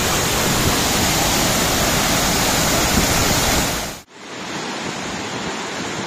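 Waterfall cascading over rocks: a steady rush of falling water. It breaks off sharply about four seconds in and carries on softer.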